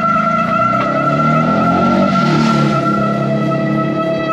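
Bicycle brakes squealing under braking: a loud, steady high-pitched squeal held at one pitch throughout.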